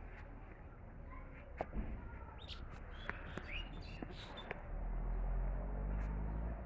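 Small birds chirping in short calls and quick rising notes through the first half. In the second half a louder low rumbling hum comes in and holds.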